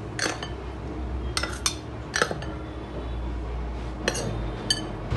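Steel spoon clinking against glass bowls while flour is scooped and measured out: about six sharp clinks with brief ringing, spread unevenly.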